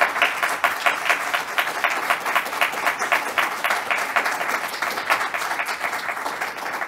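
Audience applauding: dense clapping that thins out near the end.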